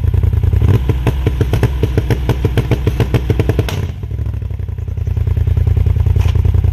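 Polaris RZR Turbo's stage 6 big-turbo twin-cylinder engine, running on E85, running at idle through an MBRP exhaust. Starting about a second in, a rapid train of sharp pops rides on the exhaust note for about three seconds; the sound then briefly drops before settling back into a steady idle.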